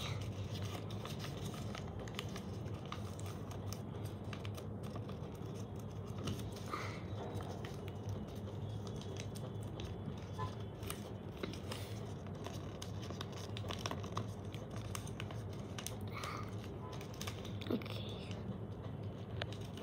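Origami paper rustling and crinkling as it is folded and creased by hand, with many small, irregular clicks and scrapes of fingers pressing the folds flat against a wooden board. A steady low hum runs underneath.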